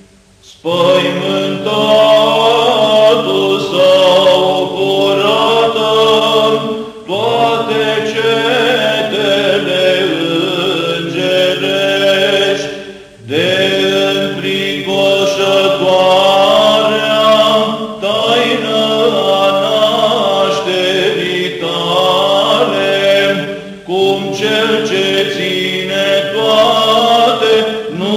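Romanian Orthodox church chant in the fourth tone (glas 4): a long, drawn-out melodic line sung in phrases of about five or six seconds, with short breaks between them.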